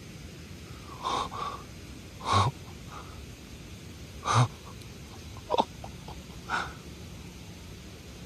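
Deer blowing in alarm: a string of sharp, airy snorts through the nose, five or six in about six seconds, the two loudest around two and four seconds in.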